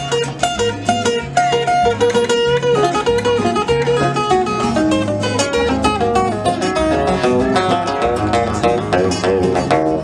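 Acoustic guitar playing an instrumental break of a country-blues song: quick plucked notes over steady, changing low bass notes.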